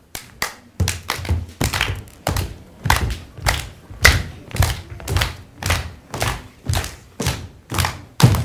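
Folk dancers clapping their hands and stamping their feet together in a steady beat, about two a second.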